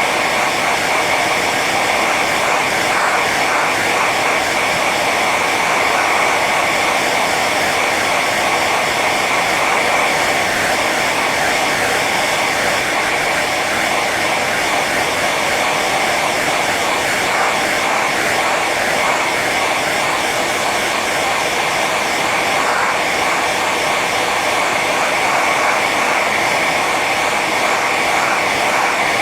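Hair dryer running on its high setting: a steady rush of blown air over the motor's whine, with a high hum near the top and no change in level.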